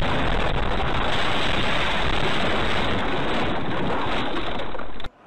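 Loud, steady rushing noise on a dash cam's microphone as the car runs off the road and tumbles into dry grass. It cuts off suddenly about five seconds in.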